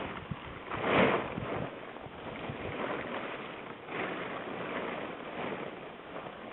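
Wind buffeting the microphone outdoors, a rushing noise with louder gusts about a second in and again near four seconds.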